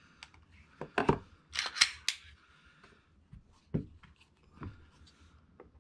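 Several short, sharp clicks and knocks from a Glock G20 pistol and a digital trigger pull gauge being handled and reset between trigger-weight pulls, with a small cluster of louder clicks about two seconds in.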